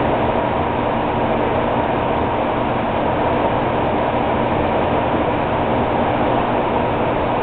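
Steady noise of an aquarium's air-driven Hydro-II sponge filter running at medium flow: an even rushing hiss with a faint constant hum under it.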